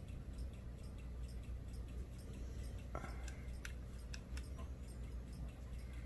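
A few faint clicks from a BlackBerry 8703's scroll wheel and keys as its menus are navigated: a short rustle about three seconds in, then about four sharp clicks over the next second and a half, over a low steady hum.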